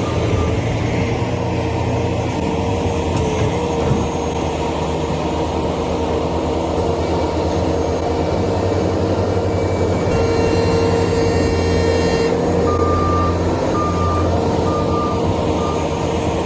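Skid steer's diesel engine running steadily under load. Its backup alarm beeps repeatedly through the last few seconds as the machine reverses.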